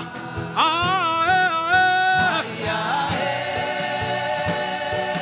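Gospel worship chant: a voice sings one long wavering held note over a sustained chord and a steady low drum beat.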